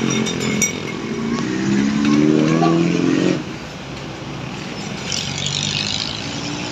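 A road vehicle's engine accelerating past, its pitch rising for about two seconds before the sound drops off sharply about three and a half seconds in, leaving a quieter engine hum.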